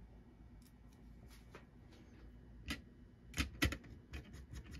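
Small clicks and taps of a screwdriver and screws against a circuit board as it is fitted onto its standoffs and the screws are started. Quiet for the first couple of seconds, then a few sharp clicks from about three seconds in.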